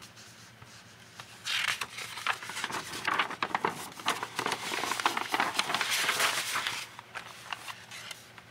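Sketchbook paper rustling and crinkling as a page is turned over by hand. It starts about a second and a half in and lasts about five seconds.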